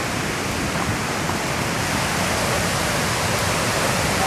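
Waterfall: steady rushing and splashing of falling water, unbroken throughout.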